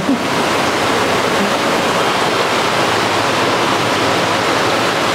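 Steady rushing and splashing of running water in aquarium tanks.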